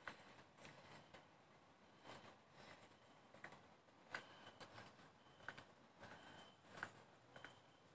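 Faint crickets chirring in a steady high-pitched band, with the soft footsteps of someone walking on a paved path, about one or two a second.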